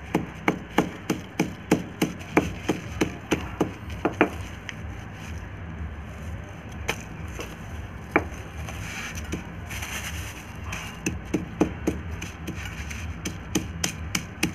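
Repeated knocks of a hand-held pounder in a white wrapping crushing sulfur and borax crystals to a fine powder on newspaper over a concrete floor, about three strokes a second. The pounding stops for several seconds about four seconds in and picks up again near the end.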